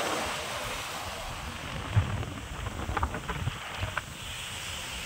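Sea surf washing over a rocky shore, mixed with wind rumbling on the microphone. A few soft knocks come between about two and four seconds in.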